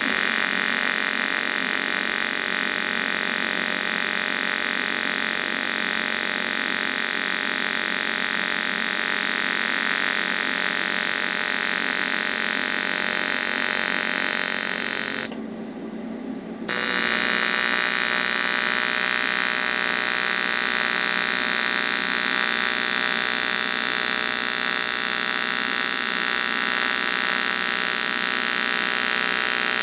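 AC TIG arc on aluminium from an AHP AlphaTIG 200X, a steady buzzing hum, first at the 40 Hz AC frequency setting. About halfway through the arc breaks off for a second or so, then buzzes again with a changed tone as the next bead is run at another frequency setting.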